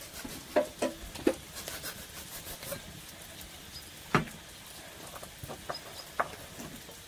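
A few short, sharp knocks and taps from a heavy cleaver and a slab of raw beef being handled on a wooden cutting board, the loudest about four seconds in.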